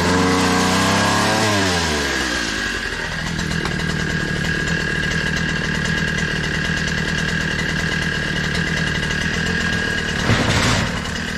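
Two-stroke engine of a petrol multi-tool with a pole chainsaw attachment: its revs fall back to idle over the first two or three seconds, then it idles steadily, with a short burst of throttle near the end.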